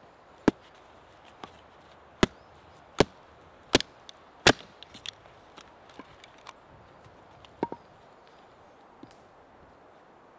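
Hatchet chopping and splitting a length of wood on a wooden chopping stump: five loud, sharp knocks less than a second apart in the first half, then lighter taps and a quick double knock later on.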